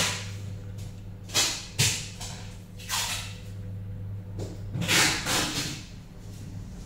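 Steady low electrical hum, with about five short rushes of noise on top of it; the longest comes about five seconds in.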